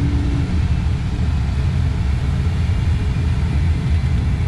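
Steady rushing airflow noise in a glider's cockpit in flight, mostly a low rumble. A faint steady tone dies away about half a second in.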